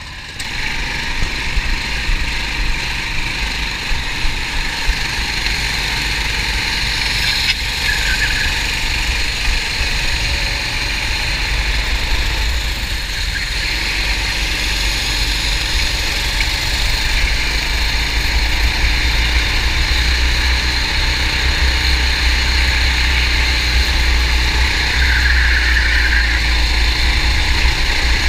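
Racing kart engine running hard on track, heard close up from an onboard camera, with a heavy low rumble of wind on the microphone underneath.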